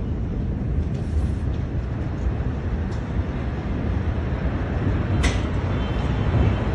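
Dense, steady low rumble of a large explosion's aftermath buffeting a phone microphone, with a few sharp cracks, the loudest about five seconds in.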